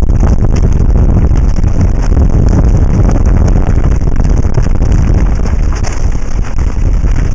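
Wind buffeting a helmet-mounted camera's microphone as a mountain bike runs fast down a dirt trail, with a dense rattle and clatter of the bike over the rough ground. It is loud and steady, easing a little near the end.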